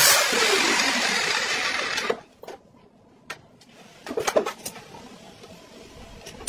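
Angle grinder cutting the steel outer race of a ball bearing, its sound falling in level and pitch before cutting off about two seconds in. After that, a few short light metallic clicks and clinks as a steel bearing ball and lathe chuck jaws are handled.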